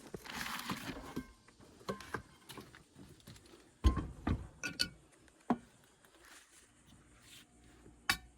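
Scattered knocks and metallic clinks of tools and metal parts being handled, some with a short ring. The loudest is a thump about four seconds in, after a brief hiss in the first second.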